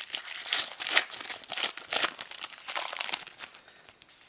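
Trading card booster pack wrapper being torn open and crinkled by hand, an irregular run of crackles that dies down near the end.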